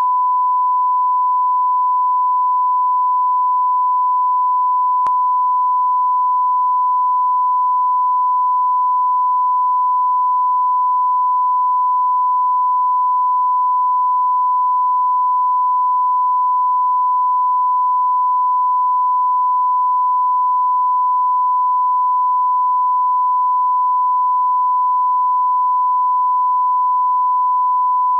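Steady, unbroken 1 kHz line-up reference tone, the 'tone' of bars and tone, used to set audio levels at the head of a broadcast tape.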